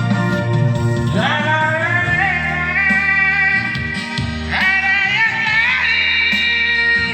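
A man singing over instrumental backing: two long sung phrases, each sliding up into a held note that wavers.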